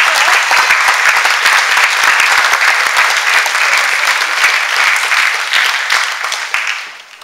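Audience applauding loudly, a dense run of clapping that dies away near the end.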